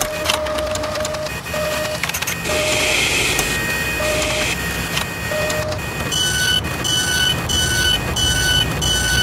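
Mechanical sound effects: machine whirring and clattering with many clicks, and short electronic beeps. The beeping turns regular, about two a second, from about six seconds in.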